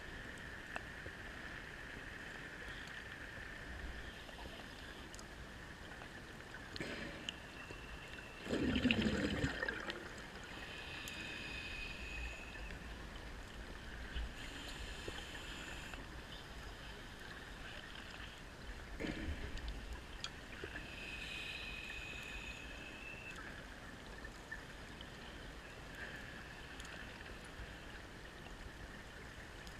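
Muffled underwater sound picked up through a camera housing, with gurgling bubble bursts from a diver's breathing gear about every ten seconds. The loudest burst comes about nine seconds in.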